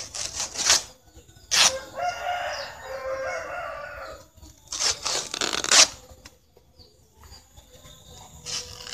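A rooster crows once, a call of about two seconds starting about two seconds in, among short bursts of rustling as banana leaves are grabbed and pulled by hand.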